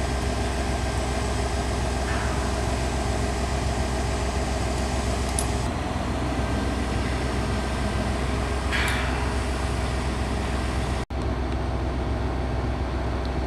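A crane's engine running steadily as it holds a steel brace on its hook, with a brief hiss about two seconds in and again about nine seconds in. The sound drops out for an instant near eleven seconds.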